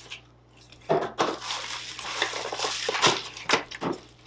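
Plastic packaging crinkling and rustling in irregular bursts as items are unwrapped from their box.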